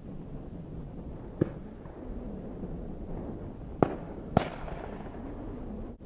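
Three distant shotgun shots from duck hunters, the first alone and the last two about half a second apart, the last one echoing, over a steady rumble of wind.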